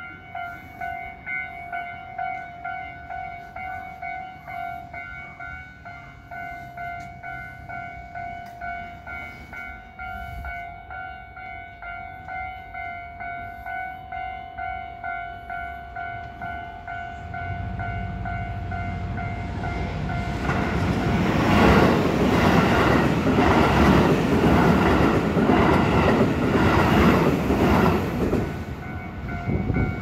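Level-crossing warning bell ringing in a steady, evenly repeating ding while the barriers are down. A train approaches with a growing rumble and passes loudly from about twenty seconds in, its wheels clicking over the rail joints in a regular beat. The train's sound drops off near the end as it clears the crossing, with the bell still ringing.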